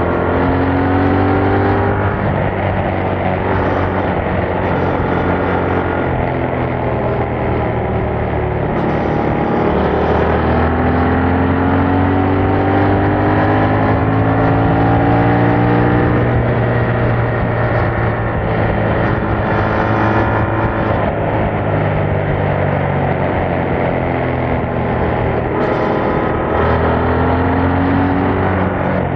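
Yamaha MT-07's 689 cc parallel-twin engine running through its stock exhaust with no dB killer, under way on the road. The engine note climbs and falls several times as the revs change.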